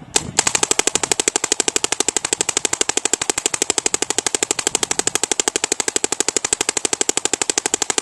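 Bob Long VCOM spool-valve paintball marker firing in PSP ramping mode: a single shot, then a rapid, even string of sharp pops.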